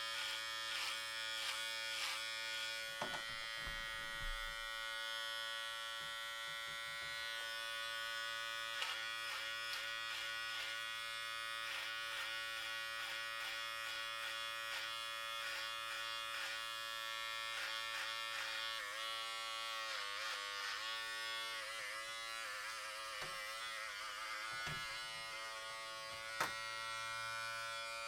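Electric hair clippers running with a steady buzz, cutting hair. The pitch dips briefly again and again as the blades work through the hair. There is a short knock near the end.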